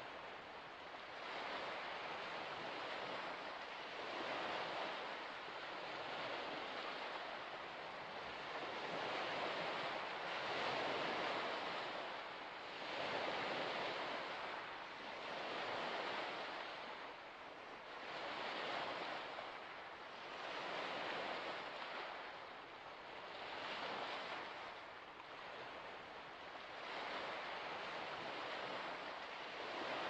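Small waves washing onto a shore: a steady rush of water that swells and ebbs about every two to three seconds.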